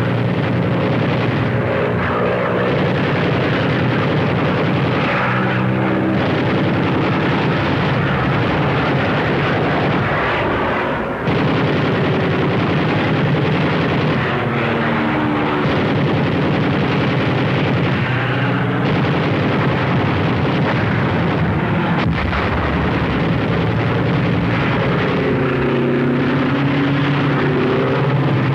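Propeller warplane engines droning loudly and steadily, the pitch swelling and falling away several times as aircraft pass and dive.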